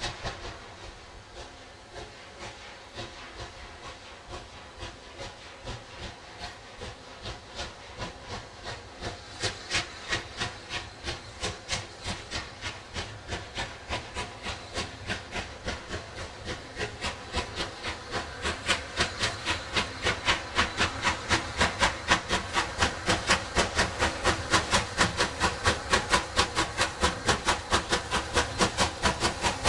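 A Bulleid West Country Pacific steam locomotive working a passenger train, its three-cylinder exhaust beating sharply at about two beats a second over the hiss of steam. The beats grow steadily louder as the engine approaches.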